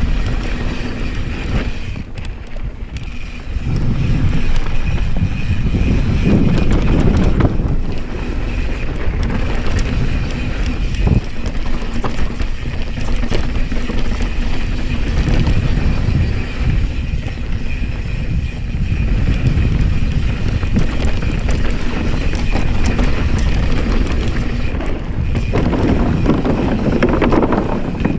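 2020 Specialized Enduro S-Works mountain bike descending a rough dirt trail at speed: knobby tyres rumbling and the bike rattling over dirt and rocks, with wind rushing over the camera microphone. Near the end the tyres roll onto wooden planks.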